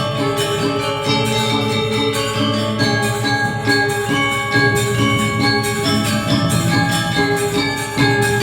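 Balinese gamelan playing, bronze metallophones ringing in quick, even repeated strokes.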